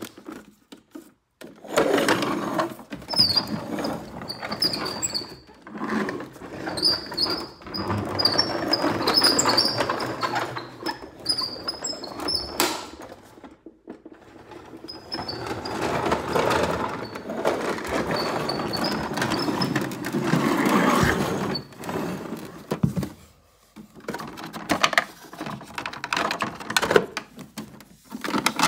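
A plastic toy vehicle pushed along a hardwood floor: its wheels roll with a rough noise and high squeaks, in two long runs with a short stop in the middle, then shorter pushes near the end.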